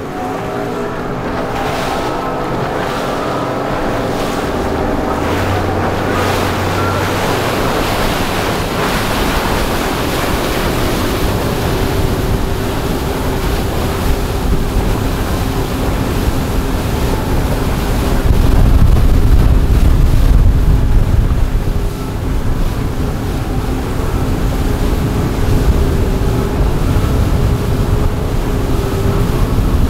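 Twin Yamaha 200 outboard motors running at speed, a steady engine hum over the rush of hull spray and wake, with wind buffeting the microphone. It gets louder and deeper for a few seconds about two-thirds of the way through.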